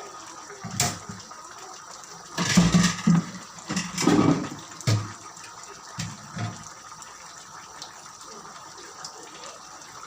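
A pot of chicken stewed in tomato sauce simmering with a steady bubbling hiss, broken by several irregular knocks and clatters of cookware in the first two-thirds.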